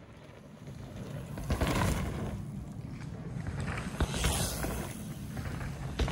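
Mountain bike rolling past on a dirt trail: a rush of tyre noise that builds over the first second and a half and surges twice, with sharp knocks about four seconds in and near the end.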